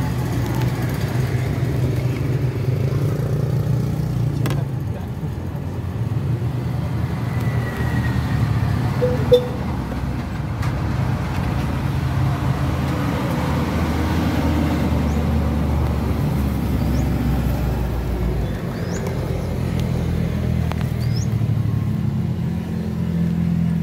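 A car engine idling steadily, a low even hum, with a single short click about nine seconds in.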